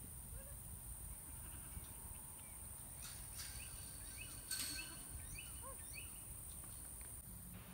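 Outdoor farm ambience: a steady high insect drone over a low rumble, with a few short bird chirps and some faint animal calls in the middle seconds, and one brief click.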